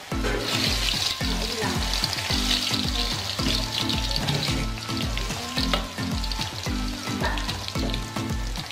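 Steamed, seasoned cassava sticks sizzling in hot frying oil in a wok, loudest in the first few seconds as the pieces go in, with a metal spatula stirring them. A steady bass beat of background music runs underneath.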